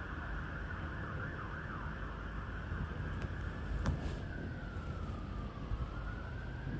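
Emergency vehicle siren over a low rumble. It first cycles quickly up and down, then drops into a slow wail that falls to its lowest pitch about two-thirds of the way through and rises again. A single sharp click sounds about halfway through.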